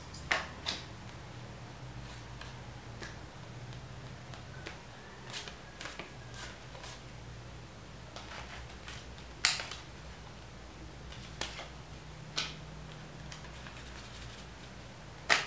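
Playing cards being handled in a card flourish: a scattering of sharp snaps and clicks, the loudest about nine seconds in and right at the end, over a steady low hum.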